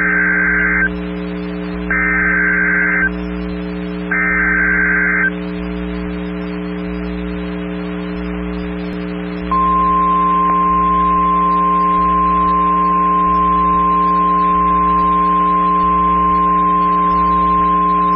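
Emergency Alert System weather-radio activation: three short, buzzy data bursts of the SAME header, each about a second long, then after a pause a single steady alert tone that starts about nine and a half seconds in. A constant low electrical hum runs underneath.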